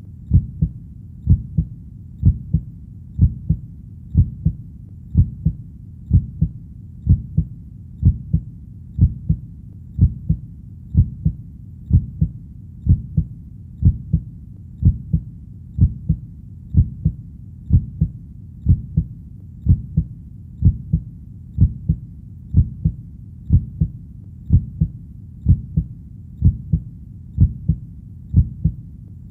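Heartbeat sound: steady low double thumps (lub-dub), about one beat a second, with a faint low rumble between the beats.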